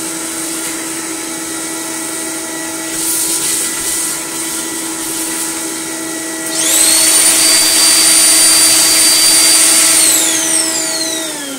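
Bench wet-and-dry vacuum running steadily as its hose sucks built-up dust from a Dyson vacuum filter. About six and a half seconds in, a louder high whine joins it and then falls in pitch near the end, and the vacuum's hum begins to wind down.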